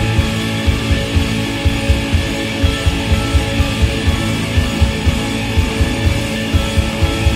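Background music: guitar with a steady low beat.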